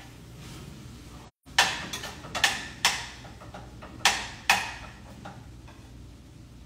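A cooking utensil knocking against a pan on the stove: about five sharp knocks with short ringing tails in just over a second, then two more about a second later. The audio briefly drops out just before the knocks.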